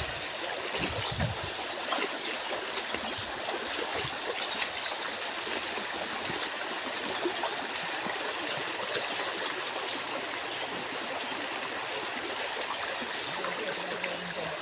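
Fast-flowing stream rushing over rocks: a steady, even rush of water.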